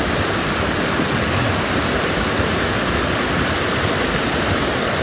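Rain-swollen canyon creek rushing, a steady loud wash of fast-flowing runoff water.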